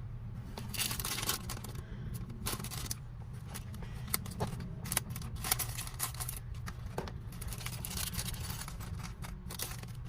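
Small plastic parts and packaging being handled: scattered light clicks and rustles over a low steady hum.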